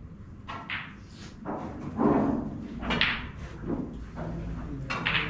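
Knocks and thumps from a snooker shot being played: cue and balls knocking, with a heavy dull thump about two seconds in as the loudest sound and sharper knocks about a second later and near the end.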